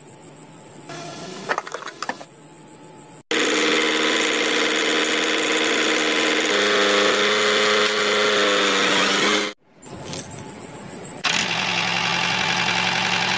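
A few light clinks, then from about three seconds in a miniature model diesel engine's small motor runs loud and steady with a whine, driving a toy water pump. It breaks off briefly about ten seconds in and comes back.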